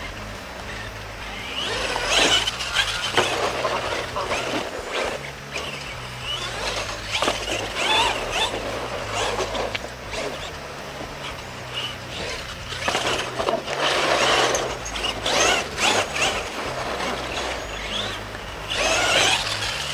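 Radio-controlled monster truck running a freestyle course, its motor whining and tyres scrabbling over the dirt in repeated surges, with a few sharp knocks.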